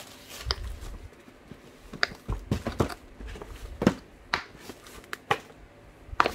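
Handling noises: a black hard-shell zippered case being lifted and turned over inside a cardboard box, giving irregular taps, knocks and scrapes, the sharpest about four seconds in.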